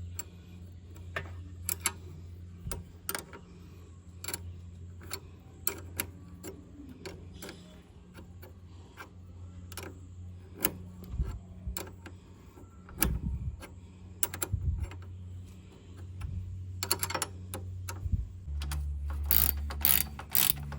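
Metal-on-metal clicks and clinks of spanners working the exhaust mounting bolts by hand, irregular and about one a second. A quicker run of clicking comes near the end, over a steady low hum.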